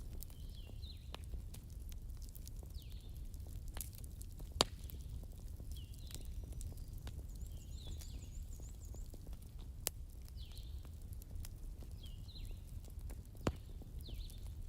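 Bonfire crackling over a steady low rumble, with many small ticks and three loud sharp pops, about five, ten and thirteen and a half seconds in. A bird chirps again and again in short calls in the background.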